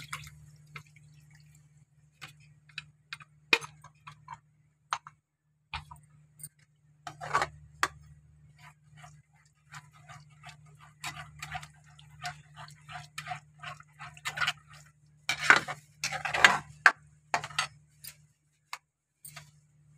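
Perforated steel spatula stirring thick masala gravy in a kadhai: irregular clicks and scrapes of metal against the pan, busiest about seven seconds in and again around fifteen to seventeen seconds, over a low steady hum.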